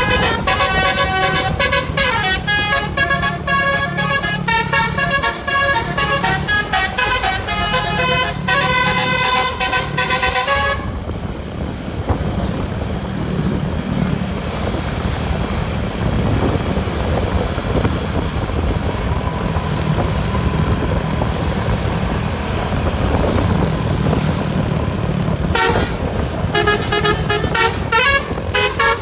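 Bus's Basuri telolet horn, a multi-tone melody horn, playing a rapid stepping tune for about eleven seconds. After it stops, only a low vehicle rumble is heard, and the horn tune starts again near the end.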